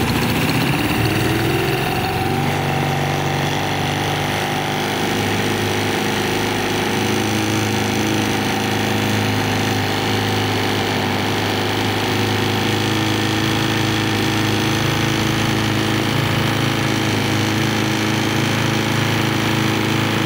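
GY6 four-stroke single-cylinder scooter engine running on a test bench just after starting. It speeds up over the first couple of seconds, then settles into a steady idle.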